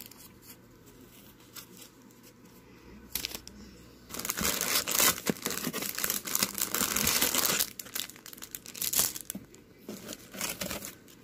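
Clear cellophane bags of wax melts crinkling as they are handled: a few soft rustles at first, a loud stretch of crinkling from about four seconds in lasting a few seconds, then shorter crackles.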